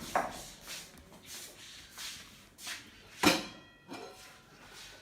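Kitchenware being handled: a run of light knocks and clatter, then one sharp metallic clank a little after three seconds in that rings briefly.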